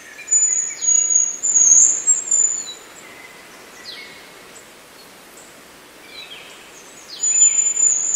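Male hazel grouse whistling its very high, thin courtship song twice, each whistle about two seconds long, with faint chirps of other birds between them. The whistling lures a female and warns off rival males.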